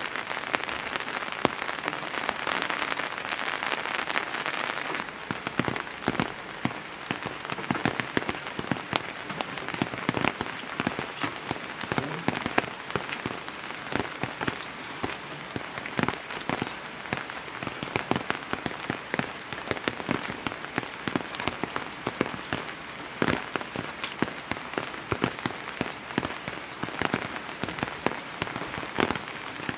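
Heavy rain falling steadily, with many sharp separate drop hits over the hiss. About five seconds in the hiss thins a little, leaving the individual drop hits more distinct.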